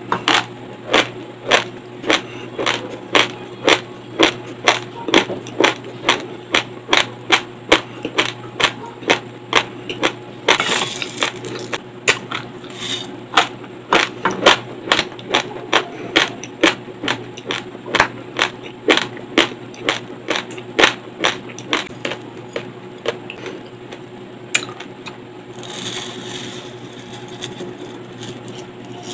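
Raw long-grain white rice crunched between the teeth close to a lapel microphone, sharp crunching chews about two a second, pausing twice for a second or so.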